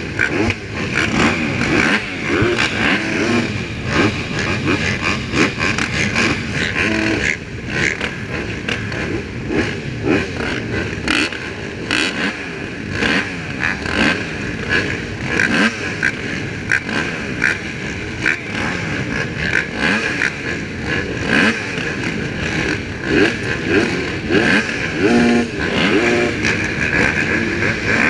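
A row of motocross dirt bikes idling and revving together on the starting line, with many engine notes rising and falling as riders blip their throttles before the gate drops.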